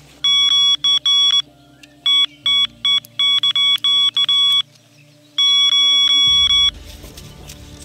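Electronic bite alarm on a rod pod sounding rapid high-pitched beeps in three bursts, the last almost unbroken. This is the alarm signalling a take: a fish has picked up the bait and is pulling line off the reel.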